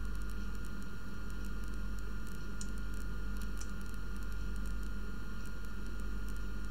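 Steady hiss with a low electrical hum and a faint high-pitched whine, the noise floor of a computer microphone, with two faint ticks in the middle.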